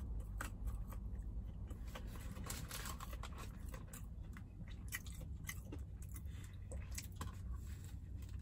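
Close-up chewing and biting of a fried chicken biscuit: irregular small crunchy clicks and wet mouth sounds as the crispy breading and bread are chewed, over a low steady hum.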